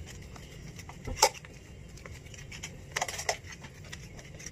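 Plastic bottle funnel clicking and crackling under gloved hands as sausage filling is pushed through its neck into a casing: one sharp click about a second in and a cluster of crackles around three seconds in, over a low steady hum.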